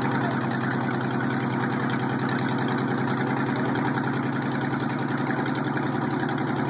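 Monster truck engine running steadily without revving as the truck rolls slowly, heard from the passenger seat of the cab.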